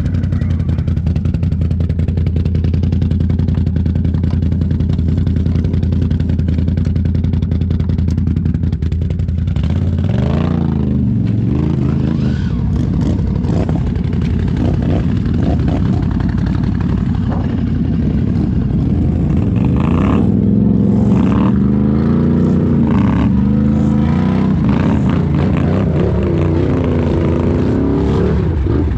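ATV engine running steadily at low revs, then from about ten seconds in revving up and down again and again as the quad churns through deep mud.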